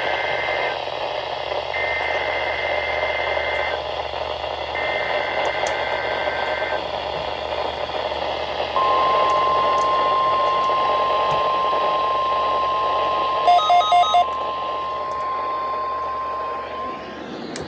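NOAA Weather Radio alert signals heard through static: three raspy bursts of the SAME digital header, then the steady 1050 Hz warning alarm tone for about eight seconds, opening a Required Weekly Test. Four quick beeps sound over the tone about two-thirds of the way through.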